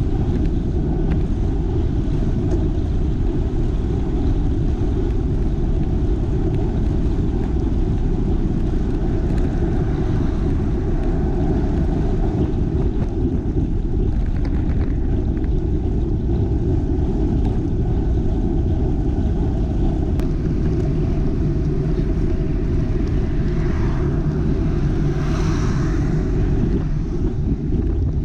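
Wind buffeting the microphone of an action camera on a moving bicycle, a steady low rumble. Near the end, a vehicle's tyre noise swells and fades as it overtakes the bike.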